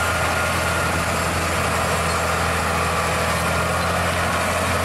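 Scania truck's diesel engine running steadily as it pulls two loaded tipper trailers, a steady low drone that does not rise or fall.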